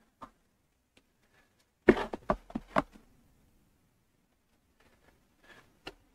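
Paperback books and a cardboard box being handled: a quick cluster of sharp taps and rustles about two seconds in, then a few fainter clicks near the end as a book is set down.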